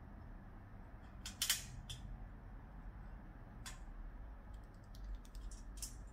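A trapped young rat's claws scratching and clicking on the steel wire mesh of a cage trap as it climbs and tries to get out. Scattered sharp ticks, the loudest cluster about a second and a half in, with a few more near the end.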